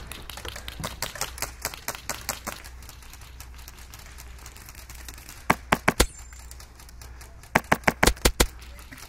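Airsoft rifle firing in quick strings of sharp clicking shots: four loud shots about five and a half seconds in, then a run of about seven more near the end. Fainter rapid clicking comes in the first couple of seconds.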